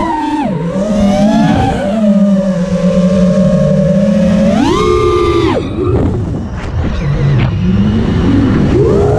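Brushless motors and propellers of a 5-inch FPV quadcopter (Brother Hobby 2306 motors) whining in flight, the pitch rising and falling with throttle. There is a sharp throttle punch about four and a half seconds in, then a dip to low throttle with some crackling before the whine climbs again near the end.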